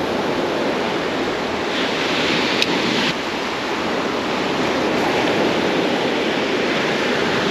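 Ocean surf breaking and washing up a beach: a steady rush of noise that swells briefly about two seconds in.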